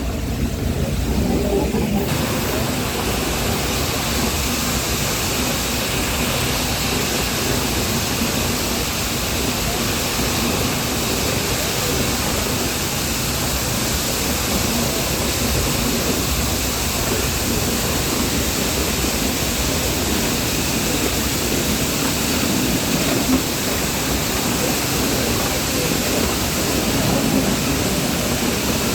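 Steady rushing noise of the Nilgiri toy train in motion, with its higher hiss coming in abruptly about two seconds in and then holding even.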